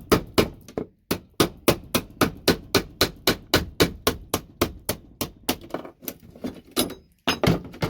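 A hammer striking a tool wedged under a VGA connector on a scrap circuit board, knocking the connector off: quick, even blows about four a second, a short pause near the end, then a few more.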